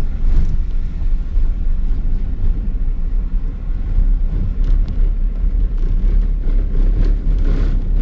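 Steady low rumble of a vehicle's engine and tyres on the road, heard from inside the cabin while driving.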